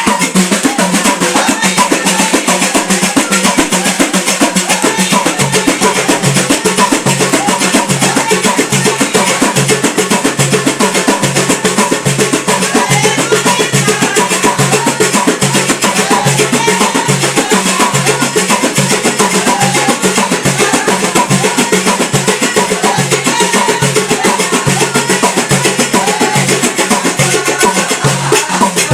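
Music driven by fast, steady drumming over a held low note.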